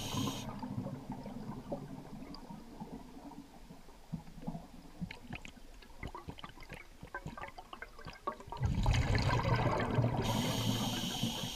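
Scuba diver's regulator breathing heard underwater: a high hiss of inhalation fades out at the start, then after a quieter stretch of faint scattered crackling clicks, a loud low rumble of exhaled bubbles begins near the end, followed by the hiss of the next inhalation.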